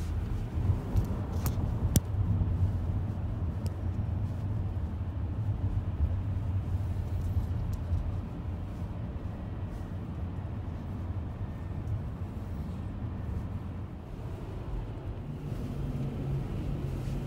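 Road and tyre noise heard inside a car's cabin while driving on a freeway: a steady low rumble, with a couple of sharp clicks about one and a half to two seconds in.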